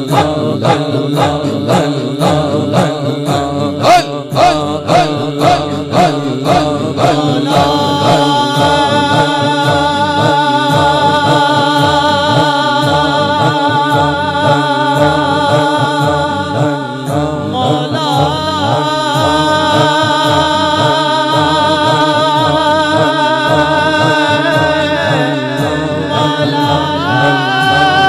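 Devotional zikr chanting and naat singing over a beat about twice a second. From about seven seconds in it turns to long held sung notes that shift pitch around the middle and again near the end.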